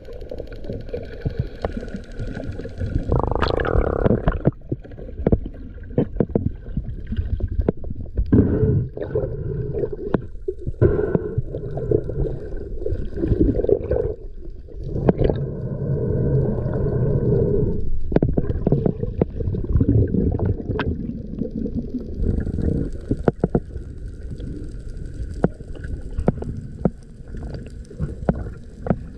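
Underwater sound picked up by a dive camera in its housing: muffled water rush and low rumble with many scattered clicks and knocks, swelling and easing as the freediver moves.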